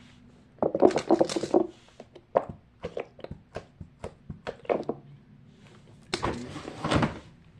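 Plastic fidget toys being picked up and set down while being counted: a string of sharp clicks and clatters, with a longer scraping rustle about six seconds in.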